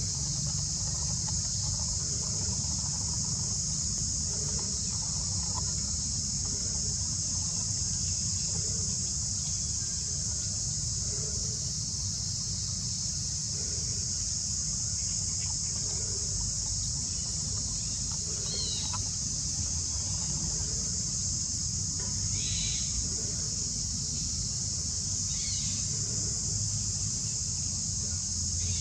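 Insects droning steadily at a high pitch in forest, over a low steady rumble, with a few brief high chirps in the second half.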